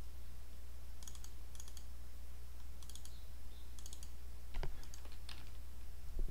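Computer mouse buttons double-clicking: about four quick pairs of clicks a second or so apart, then a couple of duller knocks, over a steady low hum.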